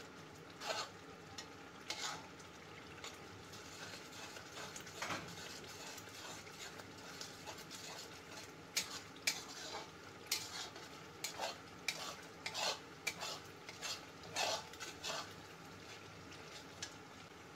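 Metal spatula scraping and stirring thick curry masala around an aluminium kadai in irregular strokes, over a low sizzle of the masala frying in oil. The strokes come quicker and closer together in the second half.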